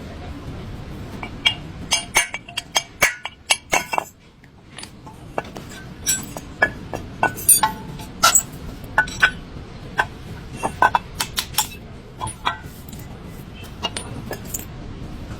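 Irregular metallic clinks and taps, a couple of dozen sharp strikes spread through, of hand tools and metal parts being handled and knocked together over a low steady hum.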